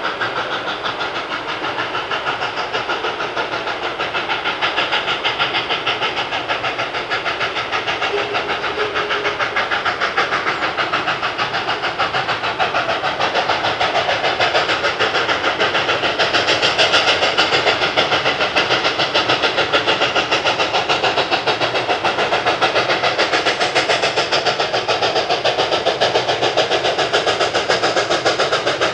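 K-27 2-8-2 steam locomotive working across a truss bridge, its exhaust chuffing in a fast, steady rhythm with steam hiss, growing louder as it approaches.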